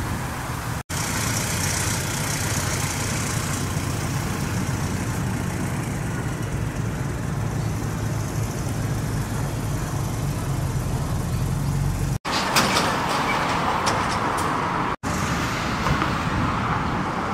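Road traffic passing: a steady low rumble of engines and tyres from a bus and cars. It is broken off abruptly about a second in and twice near the end, after which the street noise is lighter, with a few short clicks.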